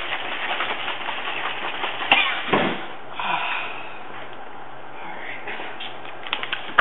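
Liquid sloshing in a plastic soda bottle as it is shaken to mix the juice, with knocks from handling, for about the first three seconds. After that the bottle is only handled and the sound is quieter.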